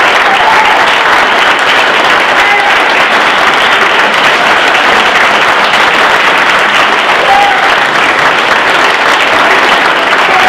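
Large audience applauding, a loud, steady, unbroken clapping, with a few short high calls rising over it now and then.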